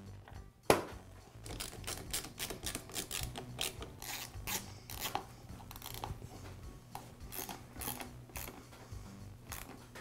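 Handling of a side cover being fitted onto a Ridgid drain auger's motor box and fastened: a sharp click a little under a second in, then irregular small clicks, scrapes and rattles as a fastener is turned in with a hand driver.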